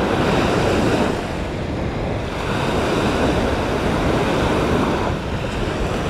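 Surf breaking on a sandy beach with wind buffeting the microphone: a steady rushing noise that swells and eases slightly, with no motor tone heard.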